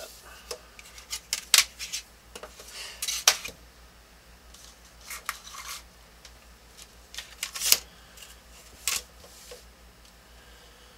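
Plastic drafting triangles being picked up, slid and set down on a drafting table: a few sharp clacks, with softer scraping and paper rustling between them.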